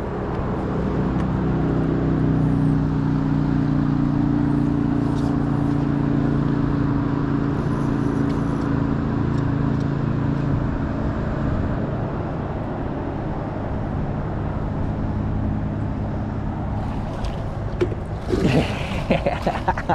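An engine running with a steady low hum that fades after about ten seconds, leaving a low rumble. A few short, louder sounds come near the end.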